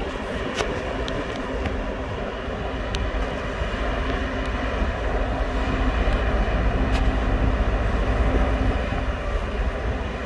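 Steady low rumble of running engines and machinery, with a steady hum and a few faint clicks. It grows a little louder in the second half.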